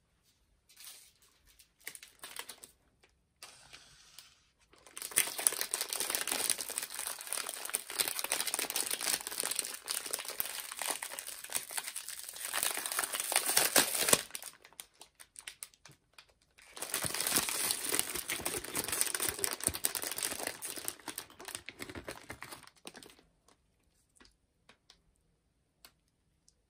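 Clear plastic candy bag crinkling as gloved hands open it and handle the strawberry-shaped marshmallows inside. There are a few short rustles first, then two long stretches of steady crinkling, of about nine and six seconds.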